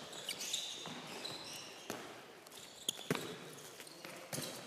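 Faint, scattered knocks of handballs bouncing and being caught on a sports-hall floor, with a few short squeaks of shoes.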